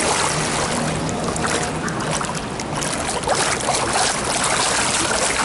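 Continuous splashing of pool water from a swimmer's flutter kick at the surface while gliding on his back, with many small irregular splashes.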